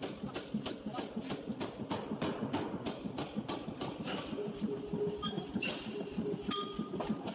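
Forging power hammer striking a red-hot steel billet in rapid, evenly spaced blows, about three a second.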